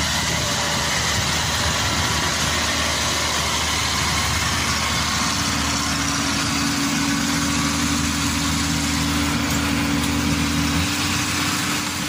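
Diesel engine of an Inari rice combine harvester running steadily as the tracked machine drives across a muddy paddy. A steady whine joins about halfway through, and the deep hum drops away shortly before the end.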